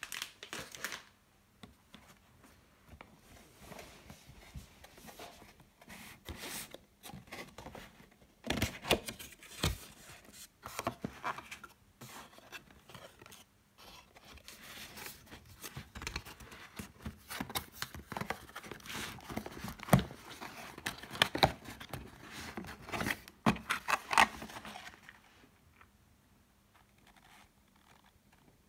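Cardboard perfume packaging handled by hand: irregular scrapes, rustles and light taps as the flaps of a stiff black inner box are opened and the gold outer box is slid and turned, with short pauses between, falling quiet near the end.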